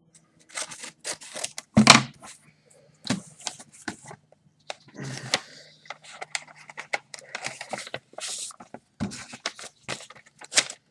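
A paper mail envelope being torn open and handled by hand: an irregular run of rustles, crinkles and short tearing sounds, the loudest about two seconds in, over a faint steady low hum.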